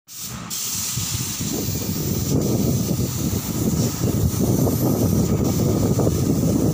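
Gravity-feed air spray gun hissing steadily as it sprays paint onto furniture, with a low rumble underneath. The sound starts abruptly.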